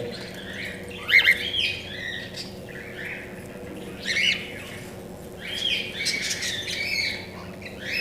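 Cockatiels calling in several short bouts of harsh squawks and chirps.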